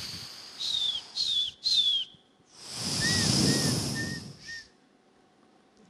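Whistling into a stage microphone: three short, high, falling whistles, then four shorter, softer chirps over a swelling rush of noise, like a brief burst of audience applause.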